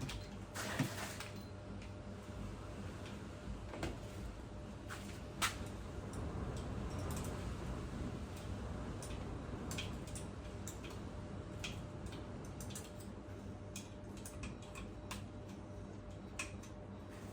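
Scattered light clicks and taps of hand tools and small metal parts being handled on a motorcycle engine during disassembly, over a steady low hum.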